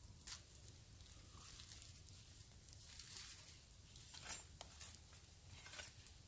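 Faint, scattered crunches of footsteps on dry leaf litter and twigs beside a small wood campfire, over a low steady rumble.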